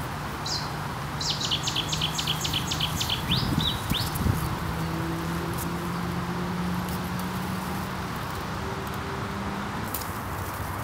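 A small songbird sings one quick phrase: a run of about eight sharp, descending notes followed by a couple of rising notes, lasting about three seconds and ending about four seconds in. Under it runs a steady background hiss and a low, even drone.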